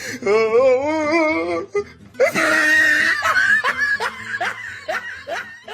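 A person laughing: first a long wavering, warbling note, then a loud shriek of laughter about two seconds in, and a run of short rising laughs to the end.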